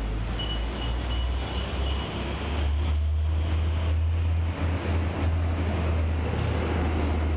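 Low, steady rumble of outdoor background noise, getting a little louder a few seconds in.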